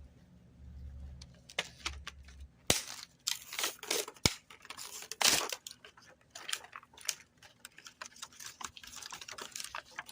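Packaging rustling and crinkling, with scattered clicks and knocks of hard plastic parts, as a hose-nozzle kit is unpacked and handled. A low hum runs under the first two seconds or so.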